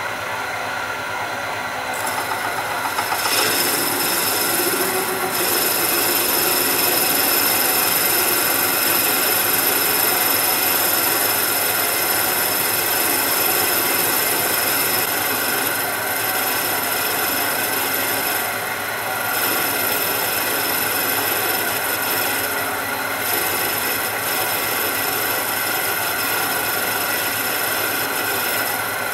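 Metal lathe running while a carbide parting-off insert cuts grooves into a spinning brass bar: a steady mechanical whine mixed with the rasp of the cut, building over the first few seconds and easing briefly twice in the second half.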